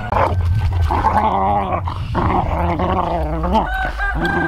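Two Airedale Terriers play-fighting, growling at each other in a run of rough growls that rise and fall in pitch.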